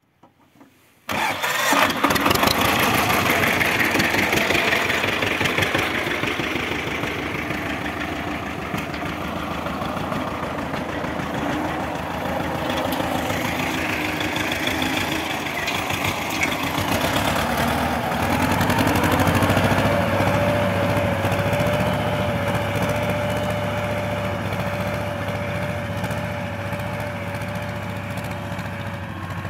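Small farm tractor's engine running loudly with a fast, even firing beat, coming in suddenly about a second in. About 18 seconds in, a whine rises and then holds steady as the engine works under load pulling a disc harrow.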